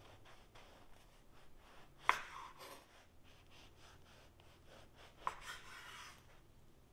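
Knife slicing through a crusty baguette on a wooden cutting board: faint crackling strokes of the crust, with two sharp knocks about two seconds in and again about five seconds in, each followed by about a second of crunching crust.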